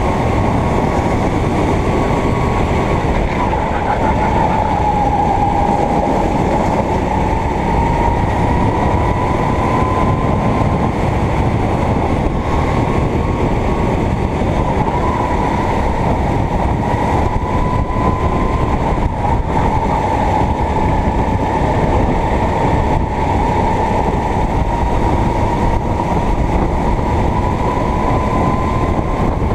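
Go-kart engine running at high revs, its pitch dipping and rising gently several times.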